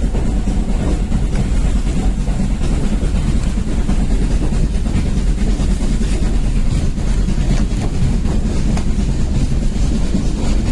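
Heritage steam railway train running along the track: a steady low rumble of the moving train.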